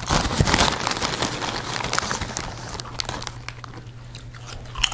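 Foil crisp packet crinkling as a hand rummages inside it for a crisp, loudest in the first second and dying away after about three seconds.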